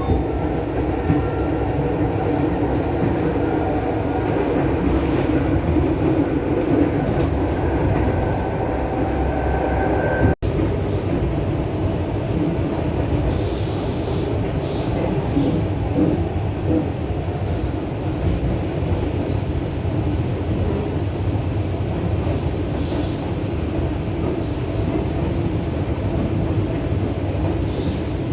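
ЭП2Д electric train running between stations, heard from inside the carriage: a steady rumble of wheels on rails, with a faint, slightly rising whine over the first ten seconds. About ten seconds in the sound drops out for a split second, and after it short hissing bursts come and go over the rumble.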